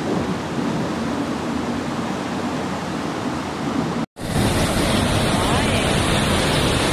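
Floodwater rushing down a street as a muddy torrent, a steady dense rush of water. About four seconds in, the sound breaks off for an instant and comes back louder, with more hiss.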